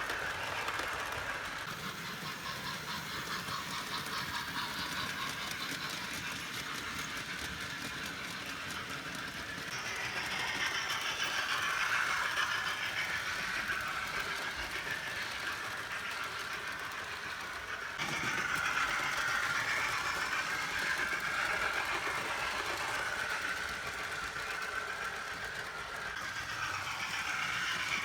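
A Hornby model steam locomotive with a TTS sound decoder running on the track: the decoder plays steam-engine sounds through the small onboard speaker, over the rattle of the model's wheels and motor. The sound changes abruptly about 18 seconds in.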